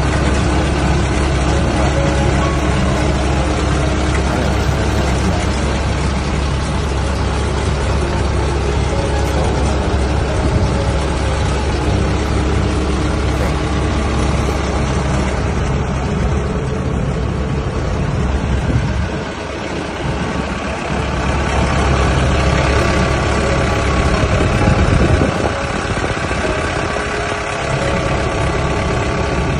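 Kubota DC93 combine harvester's diesel engine running steadily at idle, heard close up in the engine bay.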